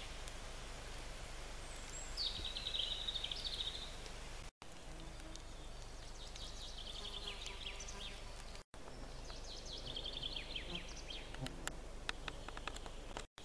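A songbird singing a quick descending trill, repeated three times, over a steady outdoor hiss. There are a few sharp clicks near the end.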